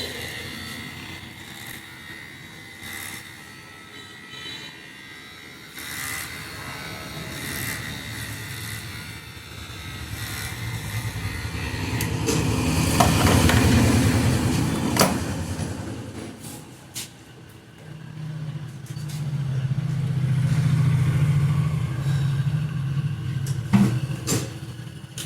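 Motor vehicles passing by, two in turn, each engine growing louder and then fading away. A few sharp knocks or slaps stand out, the loudest near the end.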